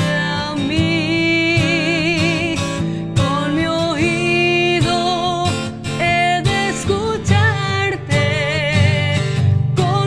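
A woman singing with wide vibrato on long held notes, accompanied by an acoustic guitar.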